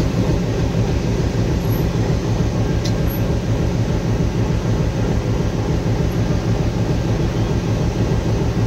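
Diesel-electric locomotive's diesel engine running steadily, a low even rumble.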